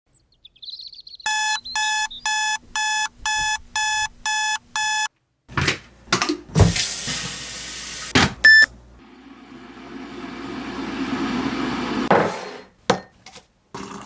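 Alarm clock beeping, eight short pitched beeps at about two a second. Then a few knocks and rustles, one brief beep, and a rushing hiss that grows louder for about three seconds before stopping, followed by a couple of clicks.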